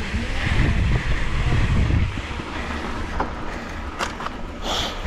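Wind buffeting a handlebar-mounted action camera's microphone while riding a mountain bike, a fluttering low rumble that eases about two seconds in. A few sharp clicks and a short hiss follow near the end.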